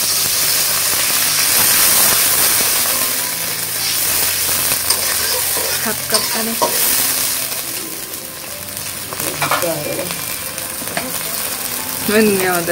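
Water poured into a wok of hot oil and fried onions hisses up into a loud sizzle that eases off over several seconds as the water boils in the oil. A metal spatula scrapes and knocks against the wok now and then.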